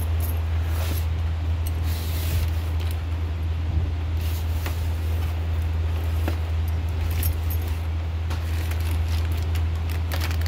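Steady low hum throughout, with scattered light clicks and rustles as the mixer grinder's motor base is handled and turned over.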